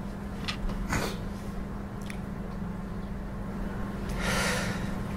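A man choked up and fighting back tears: a few short sniffs and breaths, then a longer breath about four seconds in, over a steady low hum.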